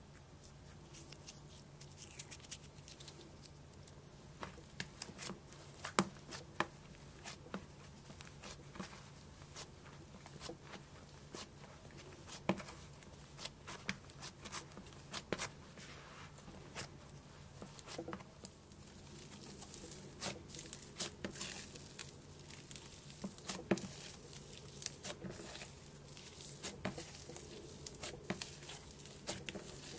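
Butter slime being pressed and kneaded by hand into instant snow to turn it into cloud slime: irregular crunching and crackling with many small sharp clicks and pops. A faint steady low hum lies underneath.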